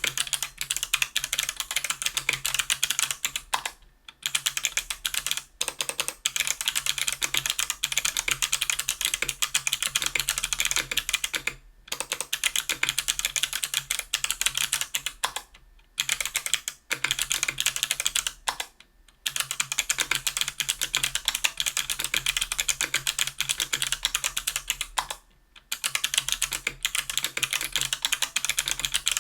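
Continuous fast typing on a 60% aluminium-case, aluminium-plate mechanical keyboard fitted with stock Kailh BOX Crystal Jade 75g clicky switches and GMK keycaps: a dense, crisp clatter of key clicks. It stops briefly about five times.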